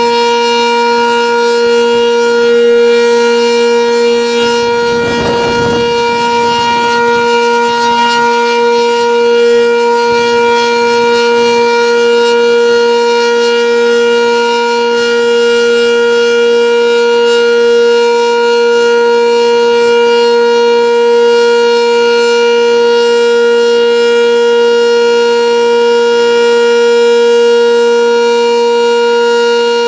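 Sentry 10V electromechanical outdoor warning siren sounding its steady alert signal for a routine monthly test: one loud tone that holds its pitch and neither rises nor falls. About five seconds in, a gust of wind rumbles on the microphone.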